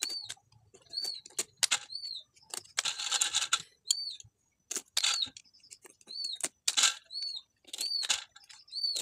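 Knife chopping greens on a leaf laid on the ground: irregular, sharp strikes in quick runs. A bird chirps repeatedly, a short rising-and-falling note about once a second.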